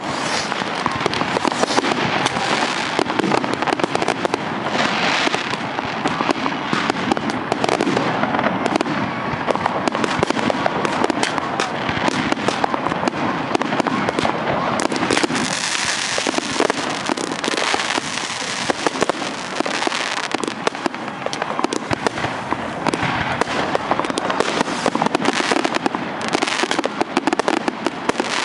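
Fireworks going off in a dense, continuous barrage: many overlapping bangs and crackles from aerial shells bursting, with no pause between them.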